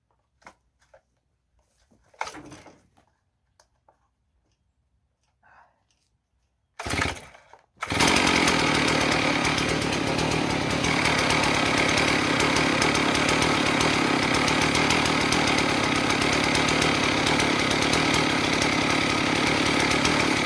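A chainsaw on a homemade chainsaw mill, sawing lengthwise through a cedar cant. A few light knocks come first, then a short burst of the saw about seven seconds in. From about eight seconds the saw runs steadily at full throttle under load until it cuts off abruptly.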